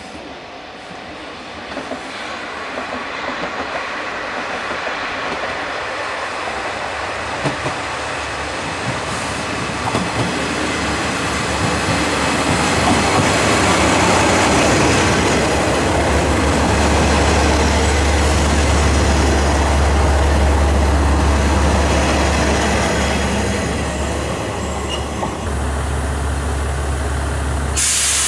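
JR Shikoku 1000-series diesel railcar arriving at a station, its engine and wheels on the rails growing louder as it comes in and slows alongside the platform. It then settles into a low steady diesel hum, with a short burst of hiss right at the end.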